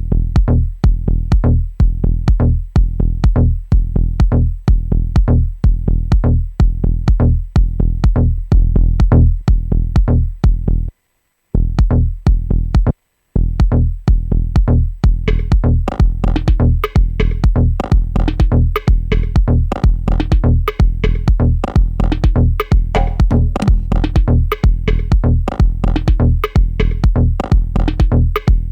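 Dub-techno groove playing back from a Maschine drum-machine pattern, with a steady kick about twice a second. Playback cuts out twice briefly just before the middle. From about halfway, more upper parts such as hats and chord stabs join the beat.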